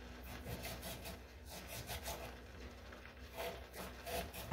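Kitchen knife slicing a red onion against a chopping board: a quick run of soft rasping cuts, several a second.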